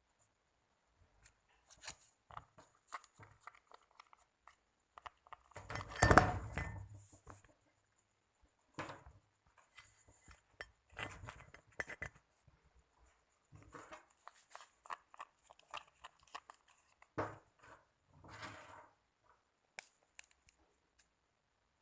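Small handling sounds from slime-making: scattered clicks, scrapes and rustles of containers and materials being worked by hand, with one louder burst about six seconds in.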